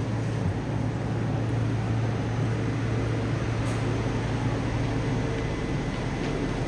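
Steady ambience of an underground subway platform: an even rushing background with a continuous low hum.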